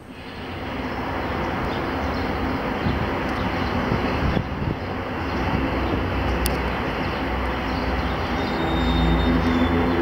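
A train rolling past: a steady rumble and rushing noise, with a thin high squeal and a deeper engine hum coming in near the end.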